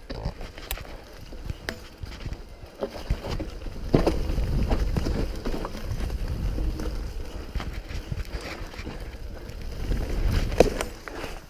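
Mountain bike descending rough forest singletrack: tyres crunching over dirt and roots, with rapid clattering knocks from the frame and components over bumps and a steady low rumble. It gets louder about four seconds in, with a sharp hit near the end.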